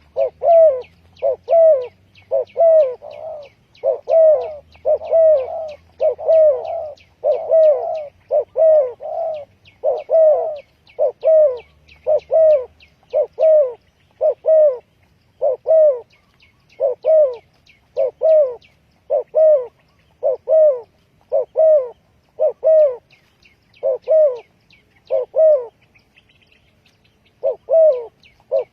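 Spotted dove cooing: short coos repeated in a steady run, about one every half second, with a pause of about two seconds near the end. It is a call used to lure wild doves.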